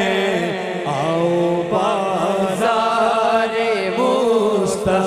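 Urdu naat sung without instruments: a lead reciter's voice in long, ornamented, held phrases, with backing singers and a steady low drone underneath.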